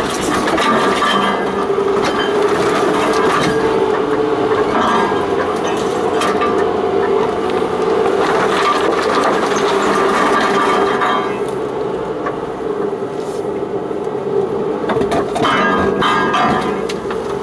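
Off-road vehicle crawling along a rough, overgrown track: a steady engine drone under a constant clatter of crackling, rustling and scraping as branches and brush drag across the bodywork and the vehicle jolts over ruts. The scraping and crackling is densest about halfway through and again near the end.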